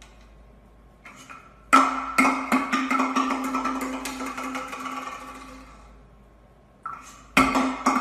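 A plastic cup scraping and rattling as an African grey parrot shoves it along a hardwood floor, in two bouts: one starting about two seconds in, and another near the end.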